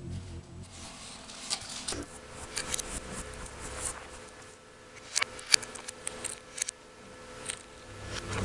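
Scattered light clicks and taps from hands handling small plastic toy pieces and packaging, in small clusters with pauses between them, over a faint steady hum.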